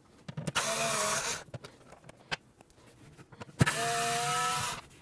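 Cordless power driver running in two short bursts of about a second each, its motor whining at a steady pitch as it backs out Torx T30 bolts, with a few small clicks between the runs.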